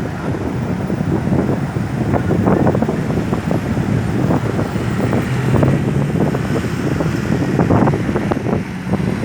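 Wind buffeting the microphone in irregular gusts over a steady low rumble of road traffic; no siren is sounding.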